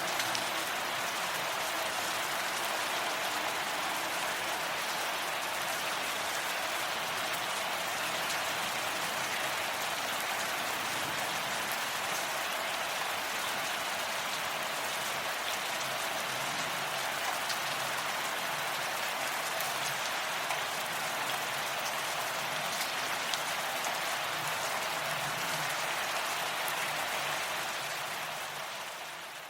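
Steady rain falling: an even hiss with scattered drop ticks. It fades away over the last couple of seconds.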